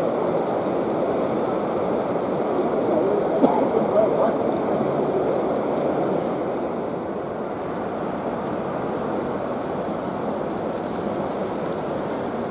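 N gauge model train running along the layout's track: a steady rumble of wheels on rail, easing a little about six seconds in.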